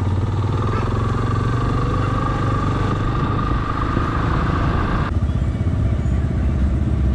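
Yamaha XTZ 250's single-cylinder engine running under the rider, its note rising slightly as the bike pulls along. About five seconds in the sound changes abruptly to a lower, steadier engine note.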